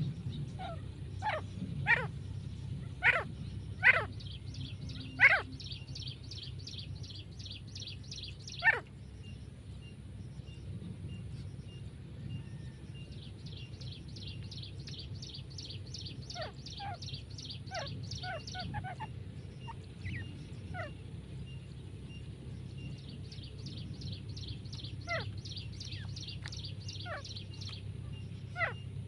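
Female grey francolin calling: runs of fast, evenly repeated high notes lasting several seconds each. Louder sharp calls slide steeply down in pitch, five or six of them in the first nine seconds and a few more further on.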